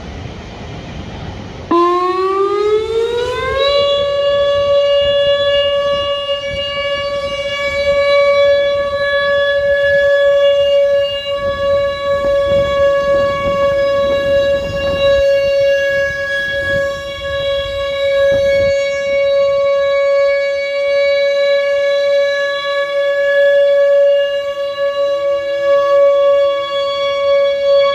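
Whelen WPS-2910 electronic tornado siren sounding its steady Alert signal: about two seconds in it switches on and rises in pitch, then holds one steady tone rich in overtones.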